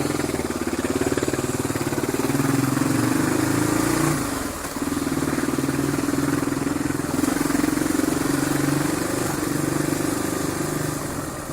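Motorcycle engine picking up from a low pulsing run to a steady pull, with a brief easing-off of the throttle about four and a half seconds in and again near the end.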